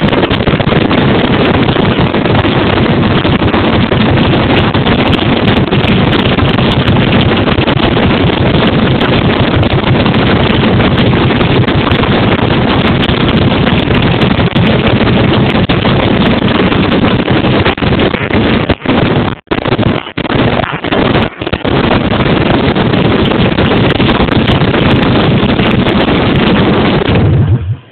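Harley-Davidson Sportster Forty-Eight's 1200 cc air-cooled V-twin running with its exhaust pipes and mufflers removed, so the open exhaust ports fire straight out. It is very loud and overloads the microphone, with a few brief dips about two-thirds of the way through, and cuts off near the end as the engine is shut down.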